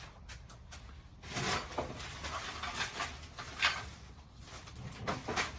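Irregular rustling and handling noise with a few sharp knocks, loudest about a second and a half in and again near the four-second mark.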